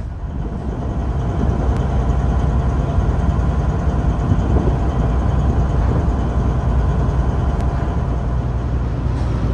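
Deep, steady rumble of a heavy diesel engine running, swelling over the first second or so and then holding even.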